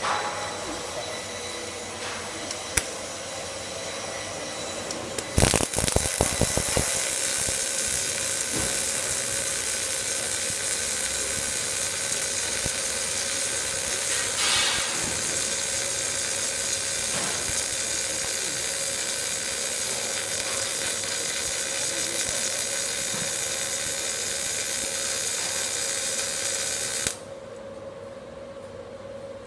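MAG (CO2 gas-shielded) welding arc from an automatic door-edge welding machine on a steel fire door seam: a steady frying hiss over a constant hum. There is a burst of loud crackles about six seconds in, and the sound cuts off suddenly near the end.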